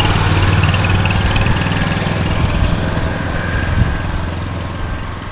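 An engine running steadily with a low hum, gradually getting quieter.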